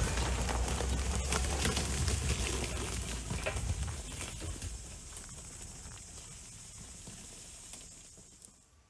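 Dacia Duster 1.3 TCe 4x4 driving away up a brushy forest track: the engine and tyre rumble fades steadily until it is almost gone near the end. Frequent crackles and snaps of twigs and brush under the tyres and against the body run through it.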